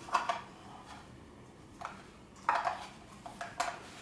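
Metal birdcage parts clinking and knocking together as they are handled and fitted during assembly: several separate light metallic clinks.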